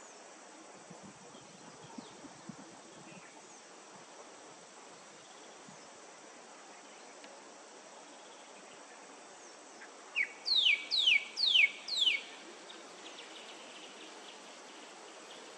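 A bird calling: a quick run of about five whistled calls, each falling sharply in pitch, about ten seconds in, over a faint steady outdoor background.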